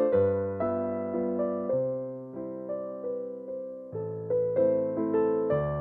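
Background piano music: single notes struck one after another over changing bass notes, each note fading after it is struck.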